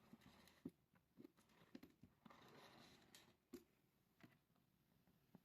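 Wheeled box being rolled slowly across the floor: faint rolling hiss with soft knocks every half second or so.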